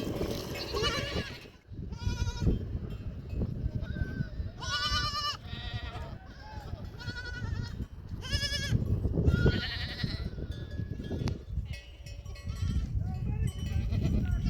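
A flock of sheep and goats bleating, many separate calls overlapping, each with a wavering pitch, over a steady low noise.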